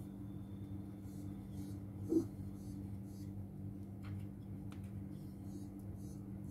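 Steady low mechanical hum in a small kitchen, with one short thump about two seconds in and a couple of faint clicks later.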